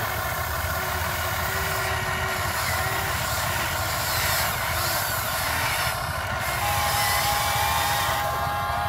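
Huina 580 RC excavator's electric motors whining steadily as the arm and bucket dig mud, the whine changing pitch about six seconds in.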